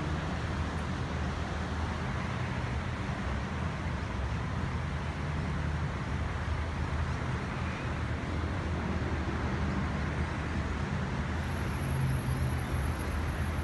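Steady hum of distant road traffic, with no single vehicle standing out.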